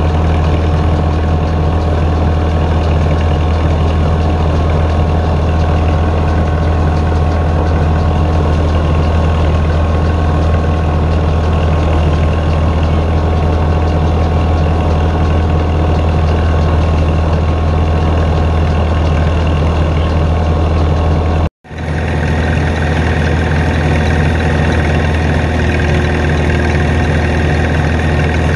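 Vintage threshing machine running steadily, driven by a long flat belt, with the drone of the engine powering it. The sound is a constant mechanical hum with a strong low drone. It cuts out for a split second about three-quarters of the way through, then resumes.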